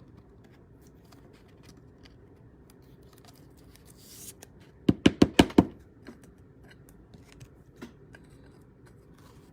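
Trading cards being handled at a table: quiet rustling and light scraping, broken about five seconds in by a quick run of about six sharp taps.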